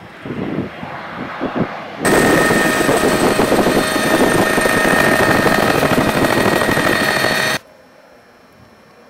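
Air Tractor 802 turboprop engine and propeller passing close and low: a loud rush with a steady high whine, starting abruptly about two seconds in and cutting off abruptly near the end. Gusts of wind on the microphone come before it.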